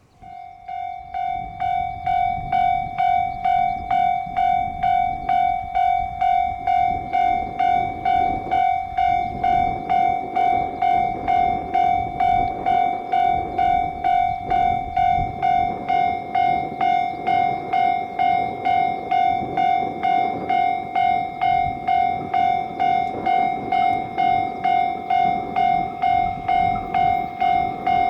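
Japanese railway level-crossing warning bell ringing: a steady high electronic tone pulsing about twice a second, swelling in over the first couple of seconds, with a low rumble underneath.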